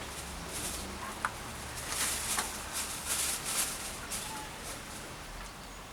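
Short bursts of hissing noise and a few light ticks as a rusted-in bicycle stem is wrenched by the handlebars; the stem is seized solid and does not turn.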